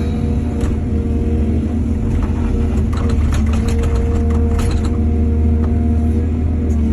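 Heavy diesel engine of an excavator running steadily under load, with a run of clattering knocks from about two to five seconds in.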